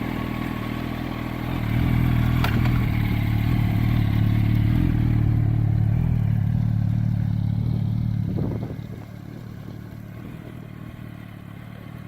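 2007 Yamaha YZF-R1's 998 cc inline-four engine running at a steady speed on freshly changed oil. The sound grows louder about a second and a half in, then drops off sharply at about eight and a half seconds and stays quieter.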